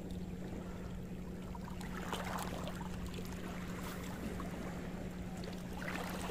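Small waves lapping and trickling against the rocky shoreline, swelling about two seconds in and again near the end, over a steady low hum.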